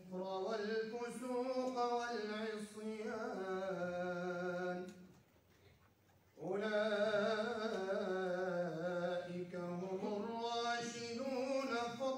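A man reciting the Quran in the melodic, chant-like tajwid style, holding long drawn-out vowels on slowly gliding notes. There is a breath pause of about a second and a half near the middle, between phrases.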